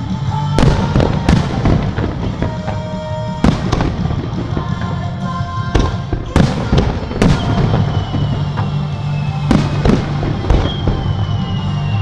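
Aerial firework shells bursting over a lake, about a dozen sharp bangs at irregular intervals over a continuous rumble. In the second half a high whistle falls slowly in pitch, twice.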